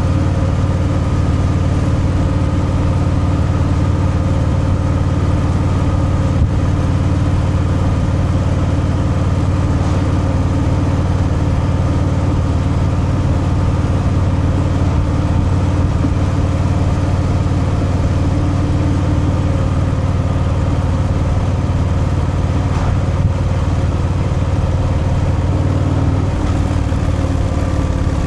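Harley-Davidson Fat Boy's V-twin engine through its stock exhaust, running at a steady speed under way, its note shifting down a little near the end.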